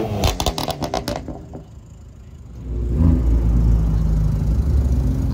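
A BMW coupe's exhaust crackles with a quick run of sharp pops just after a rev. Then, from about three seconds in, a BMW M2's engine rumbles steadily as the car rolls past at low speed.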